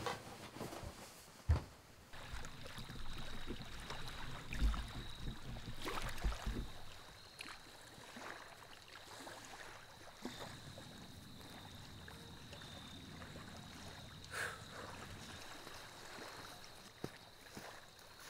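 Quiet outdoor ambience of wind and water by a shore, with a low rumble for the first few seconds and a faint steady high tone throughout. One sharp thump sounds about a second and a half in.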